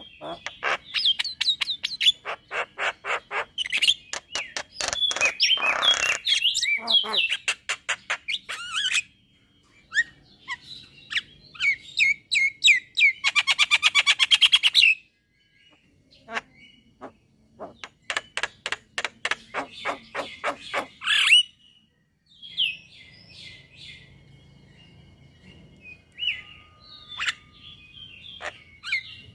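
Male Javan myna (jalak kebo) singing: long runs of rapid, evenly repeated sharp notes mixed with whistled chirps. The runs break off with short pauses twice, then give way to softer, scattered chirps in the last seconds.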